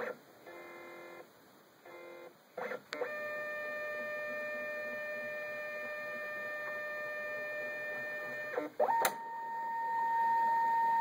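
Brother MFC-J825DW inkjet all-in-one's flatbed scanner running a scan. Short stepping sounds come first, then the scan head's motor whines at a steady pitch for about five seconds. After a click about nine seconds in, it switches to a higher, louder steady whine.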